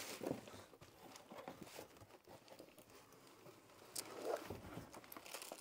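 Faint rustling and light knocks of a cardboard box and its packing being rummaged through by hand, with a sharper tick about four seconds in.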